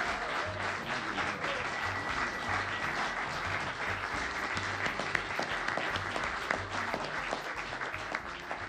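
Audience applauding, a roomful of hands clapping, fading away near the end.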